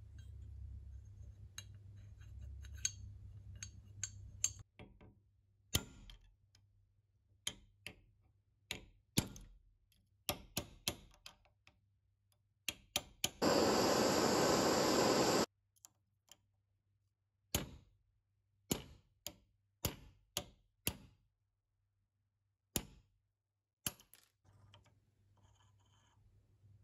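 Sharp metal clicks and taps as the parts of an old pipe vice are handled and worked loose. Near the middle, a handheld gas torch hisses steadily for about two seconds and cuts off suddenly. More single metal clicks follow.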